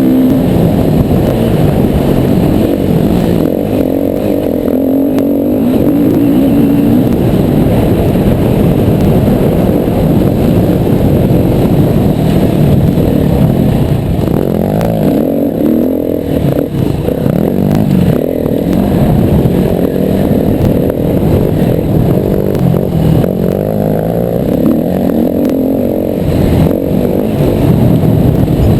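Yamaha WR250R's single-cylinder four-stroke engine being ridden off-road, revving up and dropping back again and again as the throttle is worked, with clatter over the rough ground.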